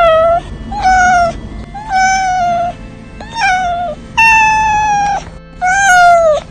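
A long-haired white cat meowing six times, about once a second. Each meow is a drawn-out call that holds its pitch and drops at the end.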